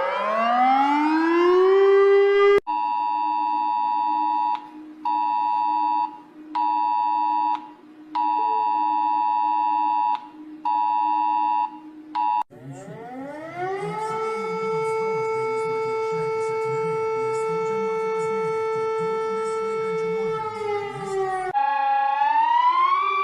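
A run of electronic emergency alert sounds. It opens on a rising siren glide, then a harsh two-tone alert beep just under 1 kHz sounds in uneven on-off pulses for about ten seconds. After that a synthesized siren tone rises, holds steady for several seconds and falls away, and another siren glide rises and falls near the end.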